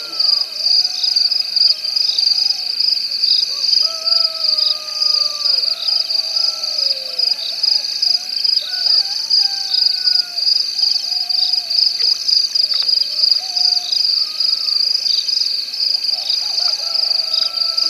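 Night wildlife chorus: a continuous high-pitched, fast-pulsing trill, with many sliding, mostly falling whistled calls lower down.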